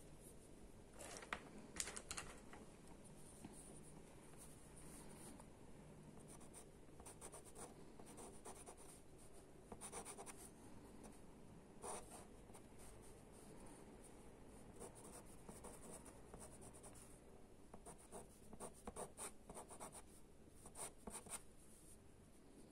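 Faint scratching of a pastel pencil drawing on Pastelmat pastel paper, in short strokes with pauses between runs of strokes.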